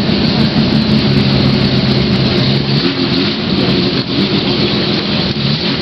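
Mazda 787B's four-rotor rotary engine running loud at low revs as the race car rolls in slowly, a steady engine note with a brief rise in pitch near the end.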